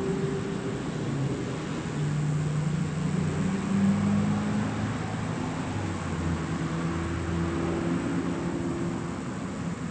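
Low motor hum that slowly shifts in pitch, over a steady high-pitched hiss.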